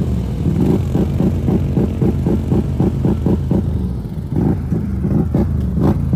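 Can-Am ATV engine working hard under throttle as the quad churns through deep mud and water, its note pulsing rapidly, easing briefly about four seconds in before picking up again.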